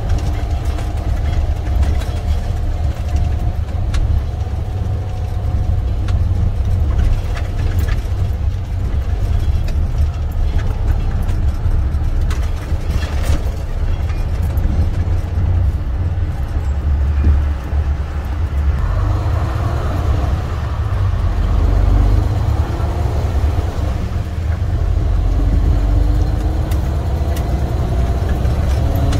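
Semi truck's diesel engine running under way, a heavy low rumble with road noise. Its note climbs as it speeds up, twice in the second half.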